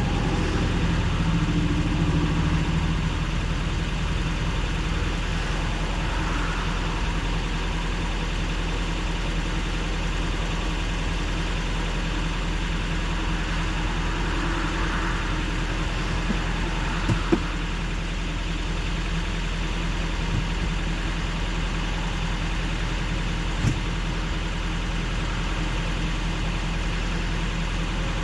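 Semi-truck diesel engine idling steadily, a low even hum, with a few short sharp knocks about two-thirds of the way through and near the end.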